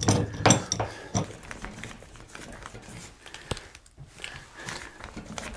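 Remodel ceiling-fan brace bar being spun by hand inside the ceiling: scattered light clicks, knocks and rustling as the bar turns and its pointed feet bite into the wood trusses. The knocks are louder and come thicker in the first second, then thin out, with one sharp click about three and a half seconds in.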